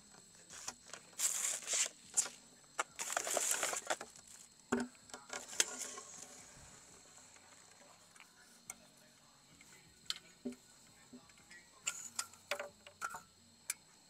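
Rustling and handling noises with scattered clicks and knocks, loudest in two stretches of rustling in the first four seconds, over a steady high-pitched insect trill.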